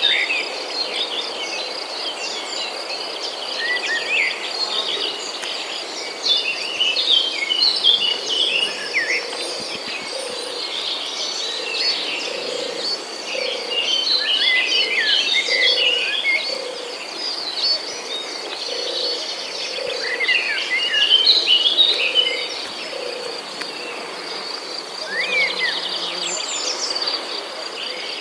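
Countryside ambience: many birds chirping over a steady high insect drone, with a soft low note repeating about once a second through the middle.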